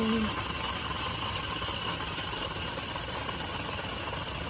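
Small electric motor of a remote control toy car whirring steadily.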